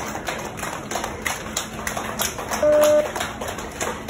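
A crowd of children and adults clapping, uneven hand claps. About two and a half seconds in, a short, loud, steady beep sounds for about a third of a second over the clapping.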